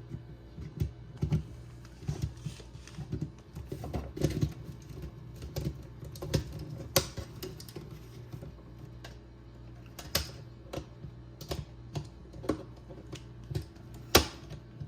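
Irregular small clicks and taps of hands working a plastic wall receptacle and its copper wires, with a few sharper clicks among them.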